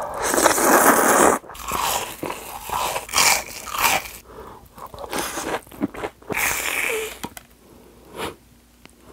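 Cold mixed noodles slurped in a loud noisy rush for about a second, then several crunchy bites into deep-fried panko-breaded pork cutlet, with close-miked chewing that quiets near the end.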